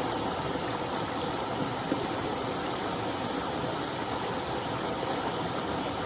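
Small waterfall pouring steadily: a constant, even rush of falling water.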